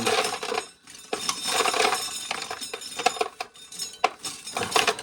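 Corn sheller stripping kernels off ears of corn, the loose kernels rattling into a pail as a dense, uneven clatter of small clicks, with a short lull about a second in.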